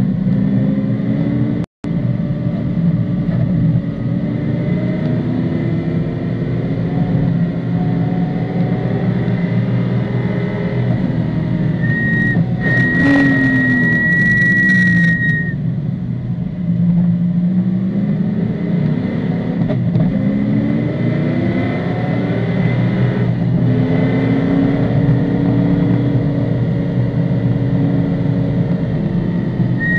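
Datsun 240Z race car's engine heard from inside the cockpit, rising through the revs and dropping back again several times as the car is driven hard, with a brief dropout about two seconds in. A high steady tone sounds for about three seconds around the middle.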